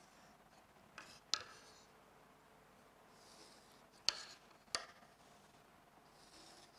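Ruling lines on a whiteboard: sharp taps as a wooden ruler and marker meet the board, in two pairs about a second in and around four seconds in, with a faint marker stroke along the ruler between them.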